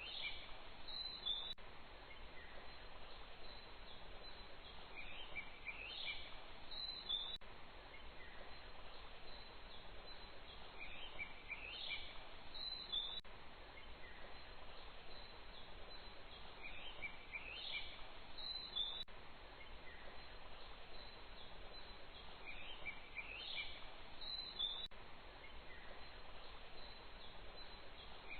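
Outdoor ambience: a steady hiss of background noise with a short cluster of bird chirps that repeats identically about every six seconds, as in a looped nature track.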